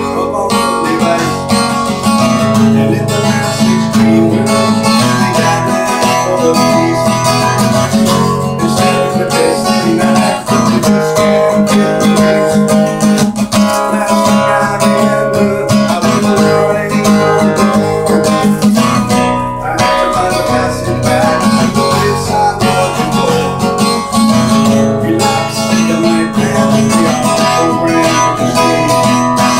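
Acoustic guitar music, strummed continuously.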